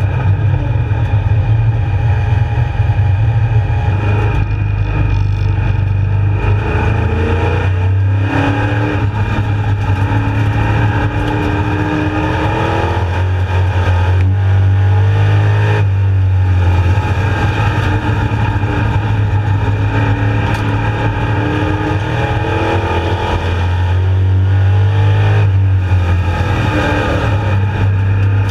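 Street stock race car's engine at racing speed, heard from inside the cockpit: a loud, steady drone whose pitch drops as the throttle lifts and climbs again as it accelerates, several times over.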